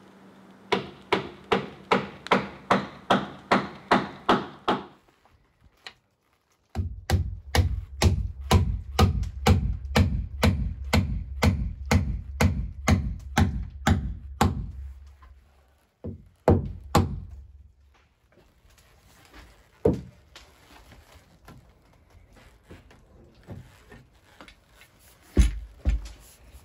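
Mallet blows on a timber frame: a steady run of strikes, about two to three a second, stops about five seconds in. A second long run follows, then a few scattered blows.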